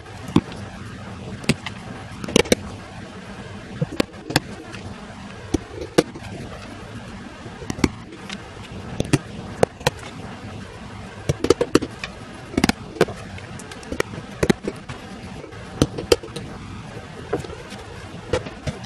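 Small hammer tapping small nails through new leather into the wooden paddle of a fireplace bellows: sharp irregular taps, often two or three in quick succession, over a steady background hiss.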